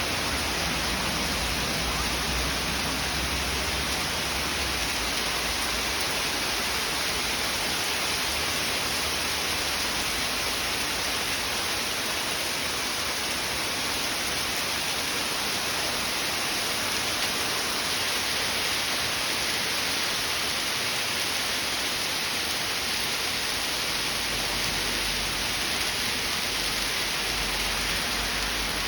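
Hail and rain falling, a steady dense hiss of many small impacts.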